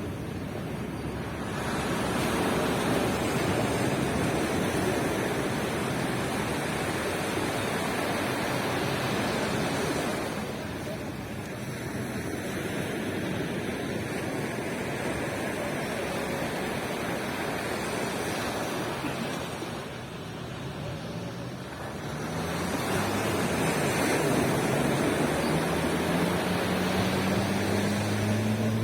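Surf breaking and washing onto a beach, swelling and easing in long waves. Over the last several seconds a boat engine's hum comes in and rises in pitch.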